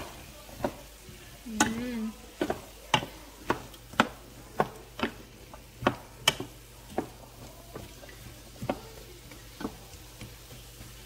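Wooden spatula knocking and scraping against a square nonstick frying pan as diced potatoes are stirred, over a faint sizzle. The knocks come about once a second and thin out in the second half.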